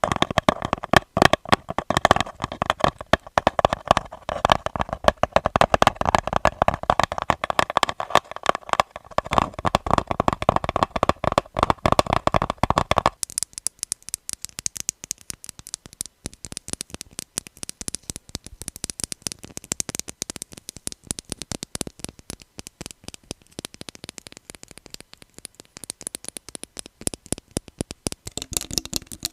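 Fast fingernail tapping on objects, many taps a second. About halfway through it changes to a different object with a quieter, thinner, brighter tap.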